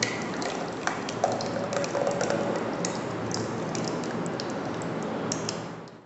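Cooked raw mango pieces in thick sugar syrup being poured from a bowl into a plastic blender jug: a steady pouring and splashing with small clicks and plops, fading out near the end.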